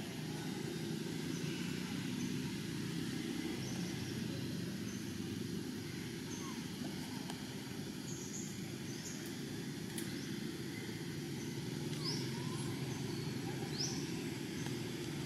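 Steady low rumble of distant motor traffic, with a few short, high, rising bird chirps in the second half.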